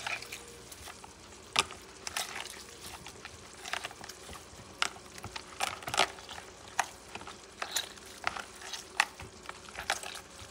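Hands squeezing and kneading water-soaked bread cubes in a plastic tub, mashing them into a paste: irregular wet squelches and squishes, roughly one or two a second.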